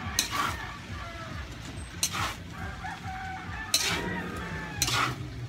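Metal spatula scraping and clanking against a large aluminium wok as rice noodles are tossed, about four strokes spaced a second or two apart. Birds call in the background between the strokes.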